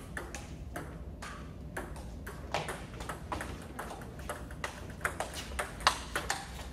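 Table tennis ball in a rally: quick, irregular sharp clicks as the ball is struck by the bats and bounces on the table, the loudest hits in the second half.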